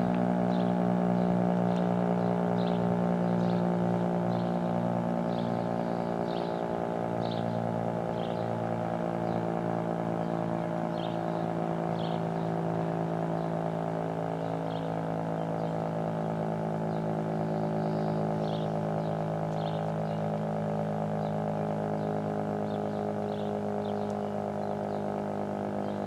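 Federal Signal STH-10A dual-tone rotating warning siren sounding a steady alert tone: a dense chord of pitches held level, swelling slightly and easing back. Birds chirp briefly over it.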